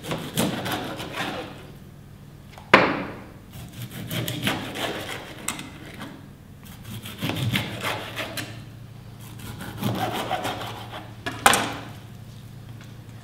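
Knife sawing back and forth through the flesh and centre bone of a brill on a plastic chopping board, cutting it into steaks, in four spells of quick scraping strokes. Two sharp knocks stand out, about three seconds in and near the end.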